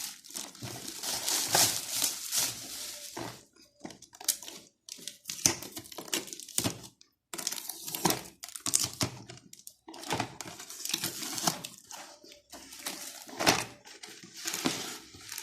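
Packaging rustling and crinkling in irregular bursts with short pauses, as a boxed doll is unpacked.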